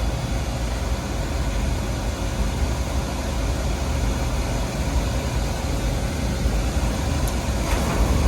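Oil burner on an oil-fired boiler firing steadily with a low, even rumble, staying lit now that air has been bled from its oil line.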